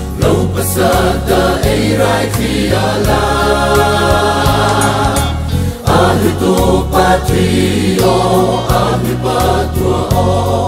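Background music: a choir singing a gospel song over a stepping bass line and a steady drum beat.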